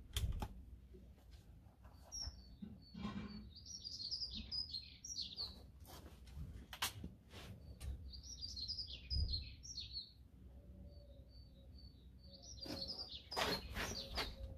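A small songbird sings in three stretches of quick, high chirping phrases. Over it come sharp clicks and knocks from a break-barrel spring air rifle, the Venom TDR, as it is cocked, loaded with a pellet and shut. The loudest clicks come at the very start and near the end.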